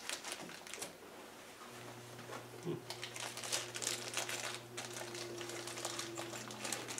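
Paper and plastic bearing wrappers crinkling and rustling as boxed bearings are handled, with small irregular clicks. A faint steady low hum starts about two seconds in.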